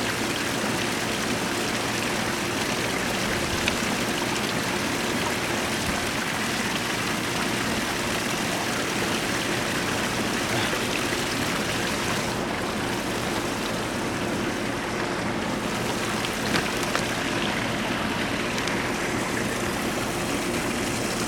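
Running water from a koi pond, a steady splashing rush with a faint steady hum underneath.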